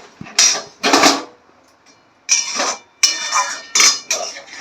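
Metal spatula knocking and scraping against a metal kadai, about six short clangs.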